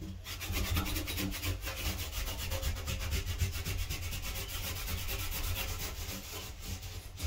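A cloth rag wetted with acetone scrubbing a metal bathtub's surface around the drain in quick, continuous back-and-forth strokes, cleaning off residue before the drain is rebuilt.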